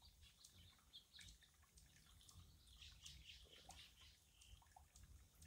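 Near silence with faint, scattered bird chirps and the light drip of water.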